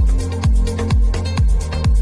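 Electronic background music with a steady kick-drum beat, about two beats a second, over sustained synth tones.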